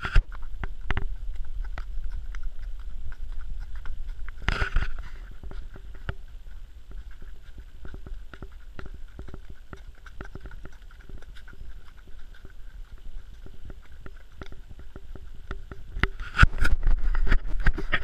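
Horse walking on a leaf-covered dirt trail, its hoofbeats heard from the saddle as a steady run of soft clicks over a low rumble, with a louder noisy burst about four seconds in and again near the end.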